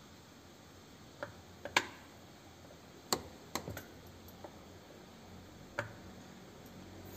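Handling clicks and taps during washing machine disassembly: about eight short sharp clicks at irregular intervals, the loudest just under two seconds in.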